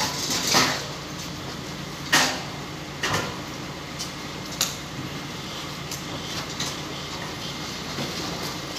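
Scattered knocks and clatter as body bags are handled and shifted in the open rear of a van, the sharpest knock about two seconds in, over a steady low background hum.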